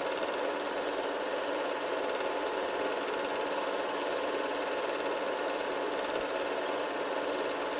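Film projector running: a steady mechanical whirr and clatter from the projector's motor and film-advance mechanism, unchanging throughout.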